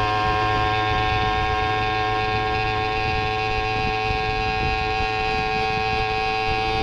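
Background music: a long held chord, with a low steady rumble underneath.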